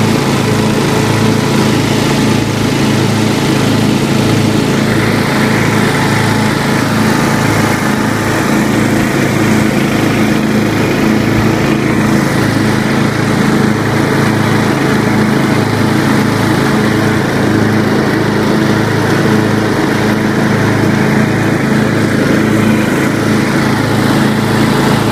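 Craftsman riding lawn tractor engine running steadily at an even speed while the 42-inch deck mows grass.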